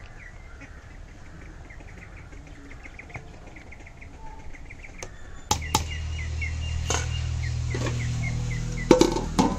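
A small bird chirping a quick, repeated short note over and over. About halfway through a low steady rumble comes in, with a few sharp metallic clinks from the steel pot and lid, the loudest near the end.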